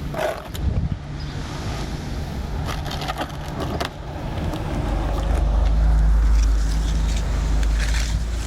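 An engine running steadily, with scraping and knocking over it; the engine's low rumble grows louder about five seconds in.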